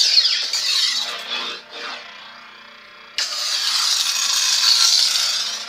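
Proffieboard lightsaber playing its sound font through a small hilt speaker: a loud hissing, unstable blade noise that sinks to a quieter low hum about two seconds in, then comes back suddenly about three seconds in.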